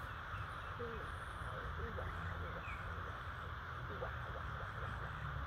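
Steady outdoor background hiss with a few faint, brief squeaks scattered through it.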